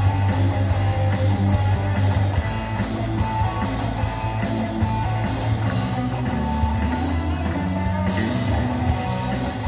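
Live rock band playing an instrumental passage, with distorted electric guitars, bass guitar and drum kit and no vocals.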